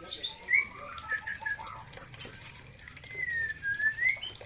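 Caged songbirds calling: several short whistled notes and chirps, then one long swooping whistle that dips and rises about three seconds in.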